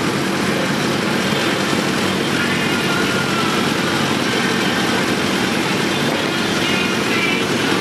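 Motor vehicle engine running steadily close by, a constant low sound with no revving or sudden changes.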